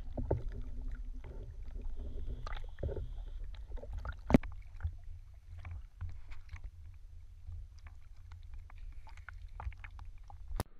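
Seawater lapping and sloshing against an action camera's waterproof housing held at the surface, heard as a steady low rumble with scattered small splashes and knocks. A sharp knock about four seconds in is the loudest event.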